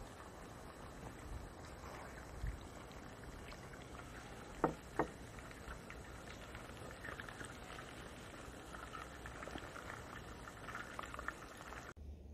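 Chicken pieces sizzling in oil in a steel pot: a steady hiss with many small crackles. Two sharp clicks come close together about halfway through.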